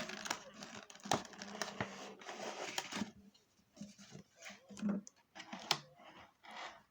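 Packaging rustling and crinkling with scattered clicks and knocks as the puzzle box is taken out of its box. The rustling is busiest in the first three seconds, then comes in short bursts.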